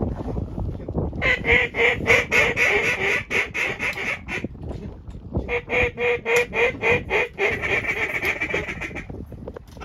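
Duck quacks in two long, rapid runs of about four to five calls a second, over a low rumble of wind noise.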